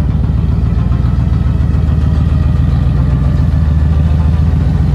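Second-generation Dodge Ram 1500 pickup engine idling steadily, low-pitched and even.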